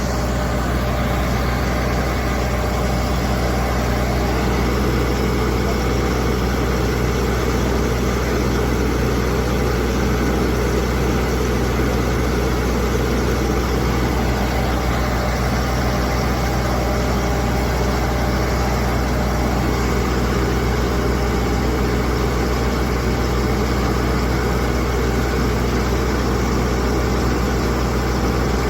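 Large engine aboard a ship running at a steady speed: a constant low drone with a deep hum underneath.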